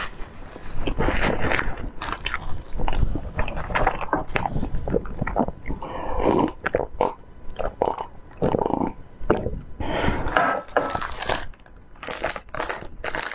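Close-miked eating sounds from a clip-on mic: chewing and wet mouth clicks, with gulps of water from a glass about halfway through, and plastic wrap crinkling near the end.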